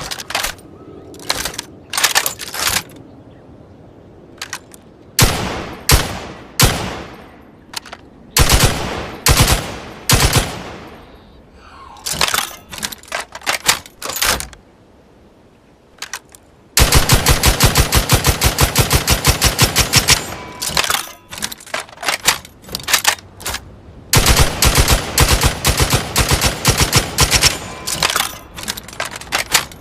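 Heavy machine gun firing: short bursts and single shots with echoing tails, then two long sustained bursts of rapid fire about three seconds each, the first starting shortly past halfway.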